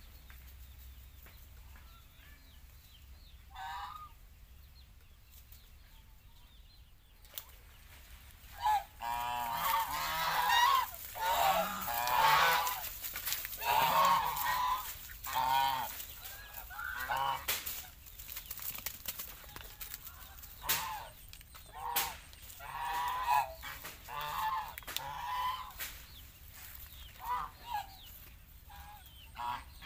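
Flock of domestic geese honking: a single call a few seconds in, then a long run of repeated honks from several birds that thins out near the end.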